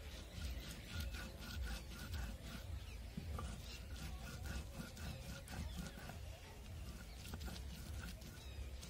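A stone muller (batta) rubbing and scraping back and forth over a flat grinding stone (sil) in repeated strokes, crushing whole dried red chillies.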